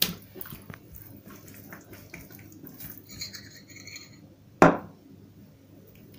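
A metal teaspoon and a small glass jar of ground five-spice mix being handled: light scraping and tapping, with one sharp glass clink a little past the middle.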